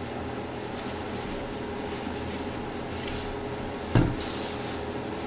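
A single sharp knock about four seconds in, over a steady low hum.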